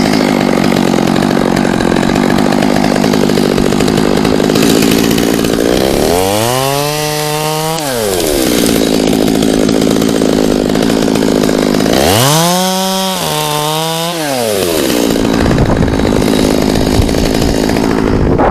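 Chainsaw engine running steadily at low revs, revved up to high speed twice, about six and about twelve seconds in, then falling back to idle each time.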